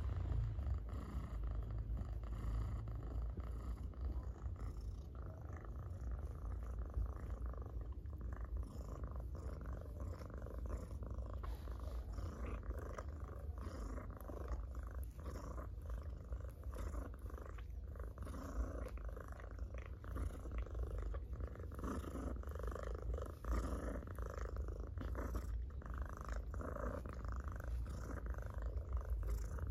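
Domestic tabby cat purring loudly and without a break as it is stroked on the head, a steady low rumble close to the microphone.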